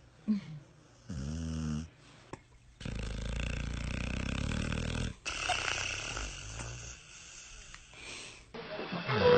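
Snoring: a short, pitched snore about a second in, then two longer, rougher snores one after the other.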